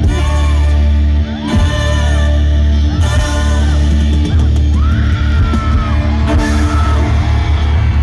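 Rock band music with a singer's long, arching vocal phrases over a loud, steady bass.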